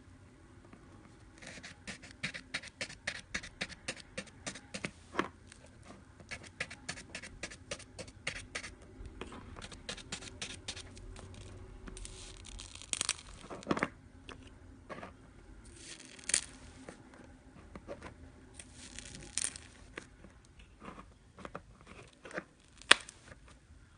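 Iceberg slime's dried crust being pressed and broken, giving long runs of rapid small crackles and crunches, with a few louder crinkling bursts in the second half.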